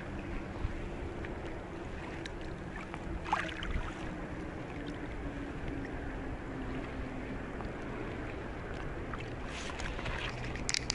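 Steady low wind and water noise on open shallow water, with a faint droning tone in the first half and a few light clicks and rustles of handling about three seconds in and near the end.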